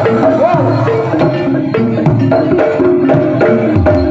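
Live Javanese gamelan-style accompaniment: pitched kettle-gong notes played in a repeating stepped pattern, with frequent sharp drum strokes.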